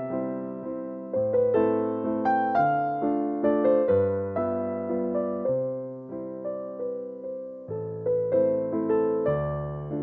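Background music: a gentle piano piece, with notes that strike and fade over slow low bass notes.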